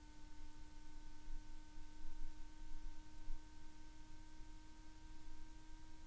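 Strong wind gusting against the microphone, a low rumble that swells and fades, under a steady faint whine.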